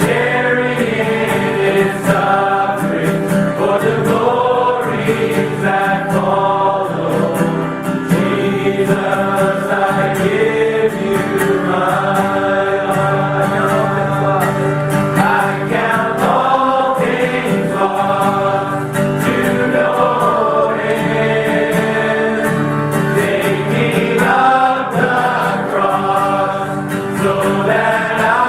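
Gospel choir singing with instrumental backing: several voices holding long notes together over a steady accompaniment.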